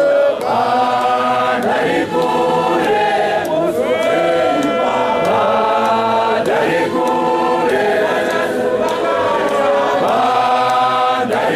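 A large choir of men singing a Shona church chorus together, holding long sustained notes in harmony.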